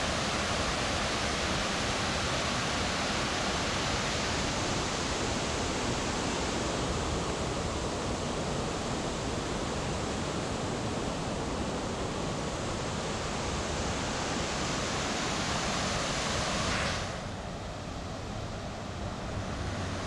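Steady rushing of a broad curtain of water falling over a stone weir into a pool. About three-quarters of the way through it becomes a little quieter and less hissy.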